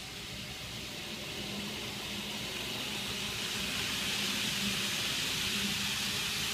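N-scale Fleischmann ICE 1 model train running on the layout track, its wheels and motor making a hiss that grows louder from about two seconds in as it comes closer, over a faint low hum.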